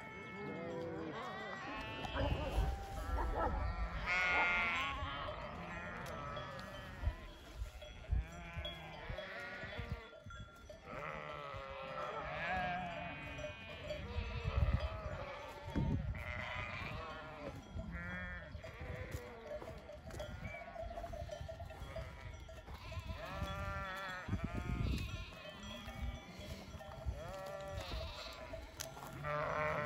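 A large flock of sheep bleating, many calls overlapping one another without a break, some high and some low.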